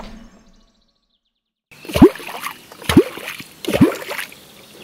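A wooden catfish clonk (Wallerholz) is struck into the river surface three times, about a second apart. Each stroke gives a deep plop that falls in pitch. The clonking is meant to call wels catfish up from the bottom.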